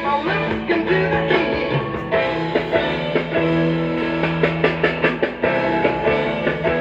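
Rock music with guitar and drums playing through a 1938 RCA Victor K62 console radio's loudspeaker, fed into its audio input, with a 6550 tube fitted in place of the 6F6 output tube.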